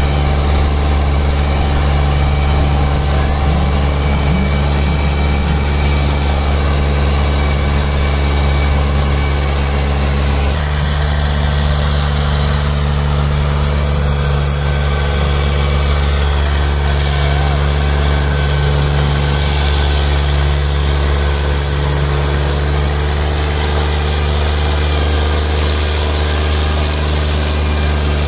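A Fiat 480 tractor's diesel engine runs steadily under load at constant speed while it pulls a disc harrow through soil.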